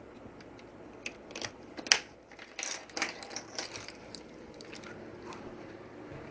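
Small plastic clicks and taps from handling a Viper 7351V remote key fob, scattered and irregular, the sharpest about two seconds in.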